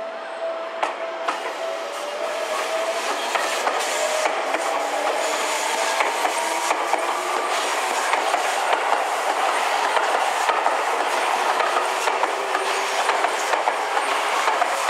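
Seibu 20000-series electric train passing close by as it accelerates away from a station. Its motor whine rises in pitch for the first few seconds, over a steady rattle and clatter of wheels on the rails that grows louder and then holds.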